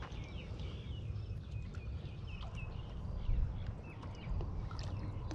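Small birds chirping, many short calls, over a steady low rumble of wind on the microphone.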